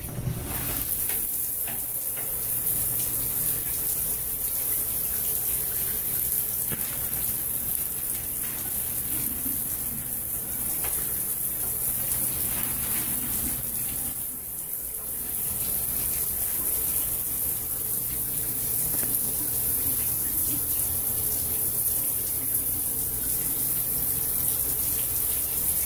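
Shower running: a steady hiss of spraying water, dipping briefly about halfway through.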